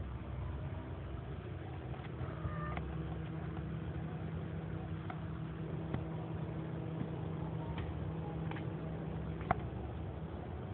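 A steady mechanical hum with a few faint clicks, and one sharper click about nine and a half seconds in.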